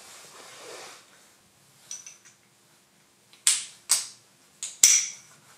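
Small steel tooling parts clicking together as an ImpactaDie hex die nut and flush collar are fitted into the die holder: a faint click or two about two seconds in, then four sharp metal clicks in the second half, the last one ringing briefly.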